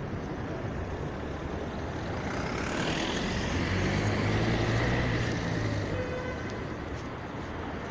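A road vehicle passing close by over a steady background of engine and traffic noise, swelling to its loudest about four to five seconds in and then fading.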